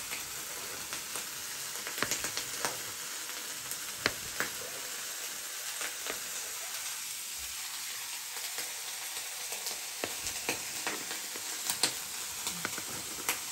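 Chopped smoked meats and sausage frying in a skillet: a steady sizzle, with scattered sharp ticks and pops throughout.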